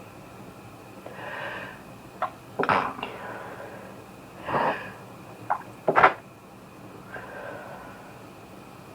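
A person sneezing twice: each sneeze comes after a drawn-in, breathy build-up, the second sneeze louder than the first. A fainter breath follows near the end.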